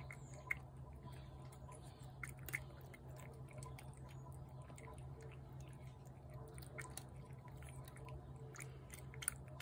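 Feral tabby cat chewing canned wet food from a plate: faint, irregular small clicks.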